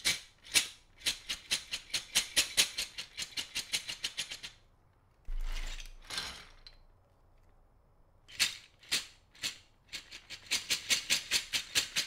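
Clear plastic bags of SA-profile PBT keycaps shaken back and forth, the loose plastic caps clattering in fast runs of about four to five shakes a second. Midway there is a pause with a rustle of bag handling, then a second bag of keycaps is shaken.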